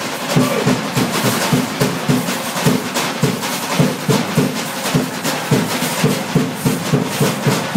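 Drums beaten in a fast, steady rhythm, about four strikes a second.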